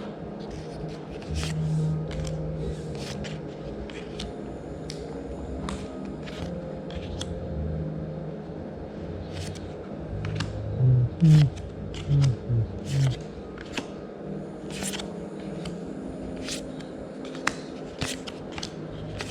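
Magic: The Gathering trading cards being handled and flipped through by hand: a steady run of short snaps and slides of card stock. There are a few short low-pitched sounds in the middle, the loudest about eleven to thirteen seconds in.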